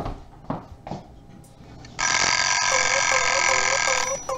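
A few dish clinks, then about two seconds in a loud electronic buzzing sound effect cuts in: a harsh steady buzz with a warbling tone pulsing about four times a second, standing for a robot malfunctioning.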